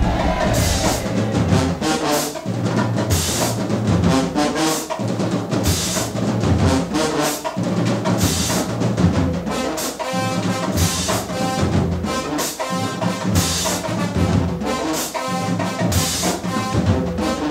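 Marching band playing: brass section carrying the tune over a drumline, with a steady beat and sharp drum and cymbal hits.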